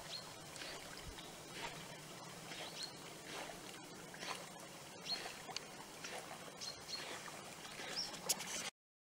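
Faint rustling and crackling of willow leaves and twigs, with a few short high chirps scattered through; the sound cuts off abruptly near the end.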